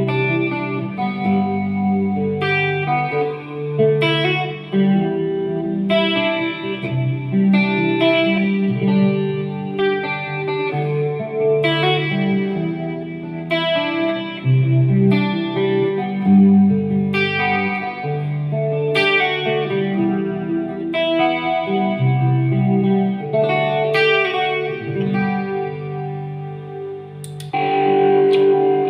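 Guitar played through an effects unit, with a little distortion. Picked notes and chords change about once a second, and a louder, fuller chord rings out near the end.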